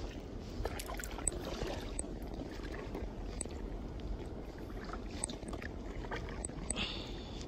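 Quiet sounds of paddling a plastic sit-on-top kayak: faint paddle dips and water movement over a low steady rumble, with a few brief high chirps.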